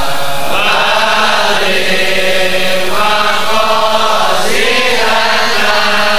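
A man's voice chanting an Arabic supplication to God into a microphone, in long, slowly gliding held notes with brief breaths between phrases.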